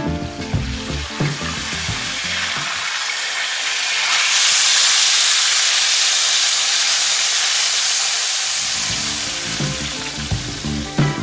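Beef tenderloin searing in hot oil in a stainless steel frying pan, sizzling steadily; the sizzle grows louder about four seconds in and eases off near the end. Background music plays at the start, fades out, and comes back in near the end.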